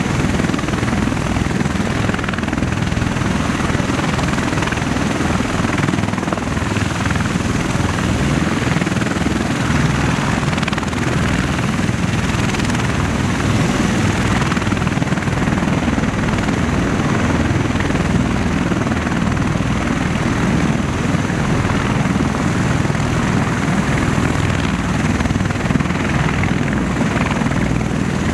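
MV-22B Osprey tiltrotor's proprotors and turboshaft engines running loud and steady as it taxis.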